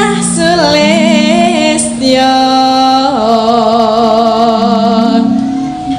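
A female Javanese singer (sinden) singing a slow song in long held notes with a wavering vibrato, over accompanying music.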